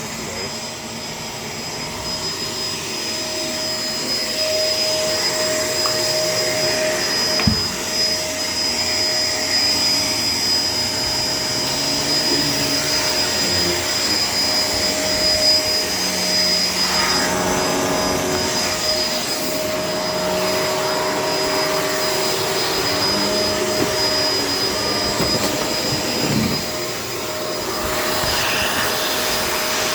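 Shark LA702 vacuum cleaner running steadily, its motor giving a constant high whine over a lower hum. A couple of brief knocks come through as it is pushed around.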